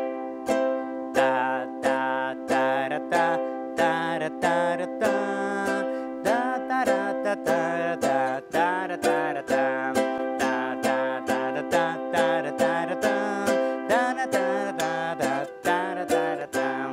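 Ukulele strummed steadily with downstrokes, about two to three strums a second, changing between C and G7 chords.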